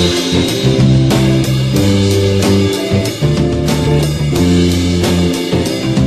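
Rock band recording: guitar, bass guitar and drum kit playing together with a steady beat.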